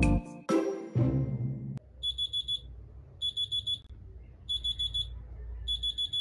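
A short keyboard jingle ends on a fading chord; about two seconds in, an electronic wake-up alarm starts beeping: high-pitched groups of four quick beeps, repeating a little more than once a second.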